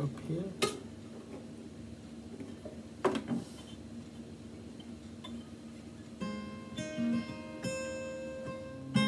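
Steel-string dreadnought acoustic guitar with a capo on the neck: a strum near the start and another about three seconds in, left ringing, then picked chord notes from about six seconds in that ring out and grow louder toward the end.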